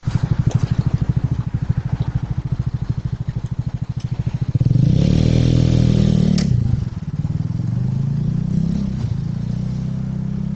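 A motor vehicle's engine running close by with a fast, even throb, revved up and back down about five seconds in, then running on steadily.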